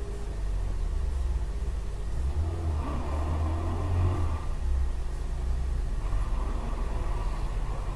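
Low, steady rumble of a car engine idling and cabin noise as picked up by a dash camera, with a louder stretch of muffled mid-pitched sound from about three to four and a half seconds in.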